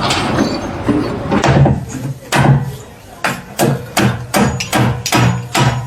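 A broad noisy burst at the start, then steady, sharp knocking at about two strikes a second, each with a low thud.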